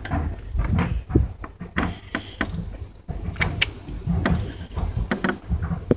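Irregular knocks, clicks and rustling from a handheld phone being carried and jostled.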